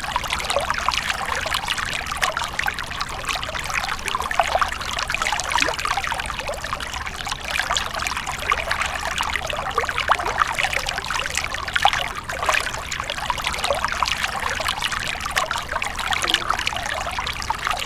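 A stream of running water flowing and splashing steadily, a continuous trickling, pouring splash without a break.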